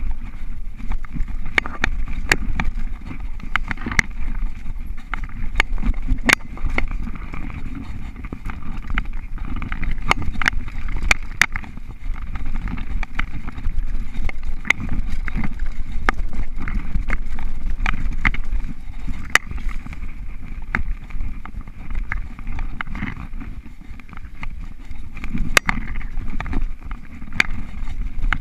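Mountain bike rolling fast down a rough dirt singletrack, heard through a GoPro mounted on the rider: a steady low rumble of tyres and wind buffeting, with frequent sharp clicks and rattles from the bike jolting over roots and bumps.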